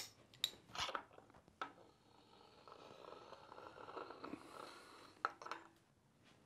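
Light metal clinks, then a steady scraping slide lasting about four seconds as the axle tube of a Porsche 356 transaxle is drawn off its axle shaft, with a few more clinks near the end.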